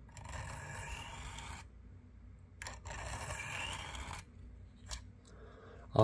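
Steel blade of a Victorinox Economy Recruit pocket knife scraping along the stone of an AccuSharp three-stone sharpener in two long strokes of about a second and a half each, with a light click near the end. The blade's worn, chewed-up edge is being sharpened.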